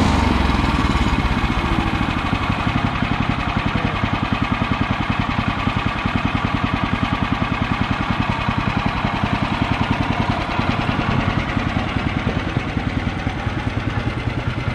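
Woodland Mills portable band sawmill's engine running at idle between cuts, with an even, fast pulsing beat; the blade is out of the wood.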